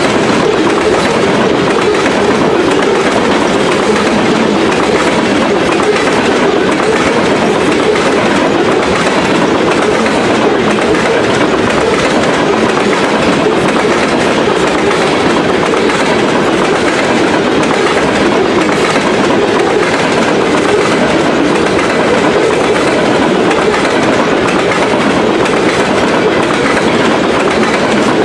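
Coal hopper cars of a freight train rolling past on jointed rail: steady wheel noise with the clickety-clack of wheels striking the rail joints.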